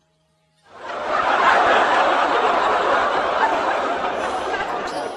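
Canned crowd laughter, a dense wash of many people laughing that swells in under a second after the start and fades out near the end.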